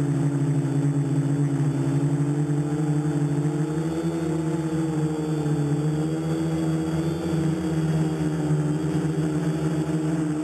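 Hobbyking X666 multirotor's electric motors and propellers running in flight, a steady hum whose pitch drifts slightly up and down as the motor speeds change.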